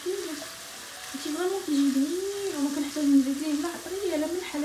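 Chicken strips sizzling in a frying pan as a wooden spoon stirs them, with a wavering vocal melody over the top from about a second in.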